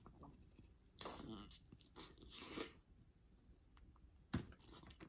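A person biting and chewing a sauced chicken wing, heard as a few separate bursts of mouth noise, with one sharp click a little after four seconds in.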